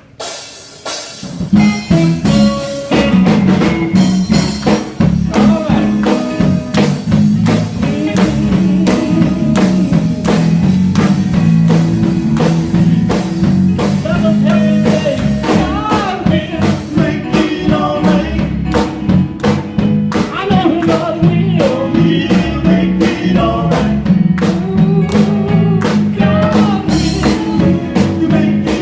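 Live gospel band starting a song, coming in about a second in: a drum kit keeping a steady beat under bass and electric guitar, with voices singing over it.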